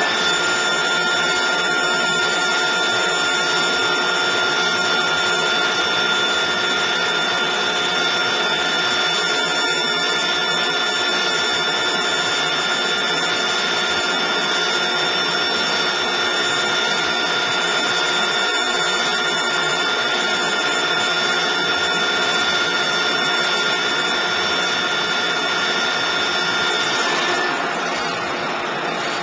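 Plug-flow (dense-phase) pneumatic conveying system running: a steady mechanical hiss with several fixed high whining tones. It cuts off near the end, leaving a lower machine hum.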